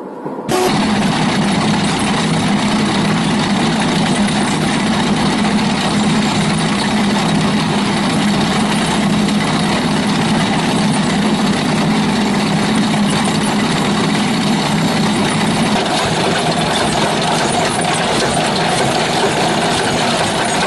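Engine of a heavy farm machine running steadily with a strong low hum. It cuts in suddenly, and about three-quarters of the way through its tone shifts higher.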